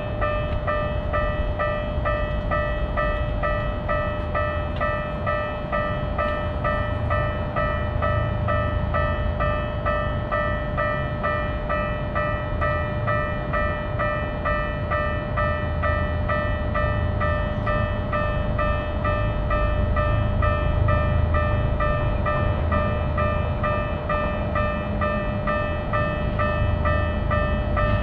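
Japanese railroad crossing warning bell ringing in a steady, rapid repeat, with the low rumble of a train running past underneath it.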